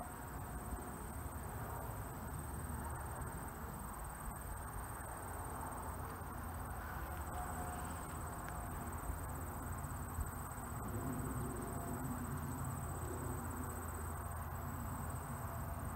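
Faint steady outdoor garden ambience: a low rumble with a steady high-pitched trill of insects over it.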